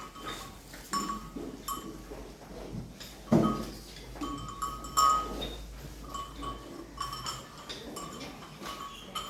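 Cattle in a cow shed: animal calls and stirring, with repeated light metallic clinks like bells or chains ringing now and then.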